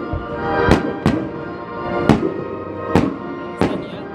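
Fireworks bursting with five sharp bangs, some close together, over music with sustained tones.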